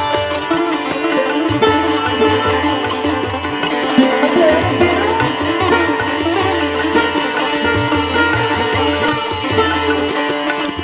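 Background instrumental music with sustained melodic lines over a repeating low bass pulse.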